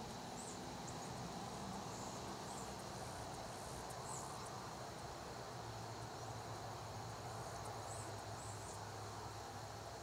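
Outdoor ambience: a steady low hum under a faint even hiss, with a handful of short, very high chirps scattered through, about eight in all.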